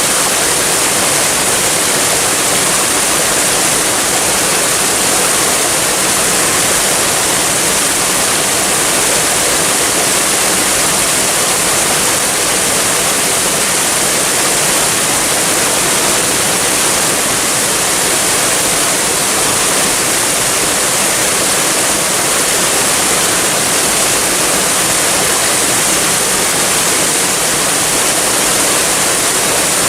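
Waterfall: water pouring and splashing in a steady, unbroken rush, heavy in high hiss.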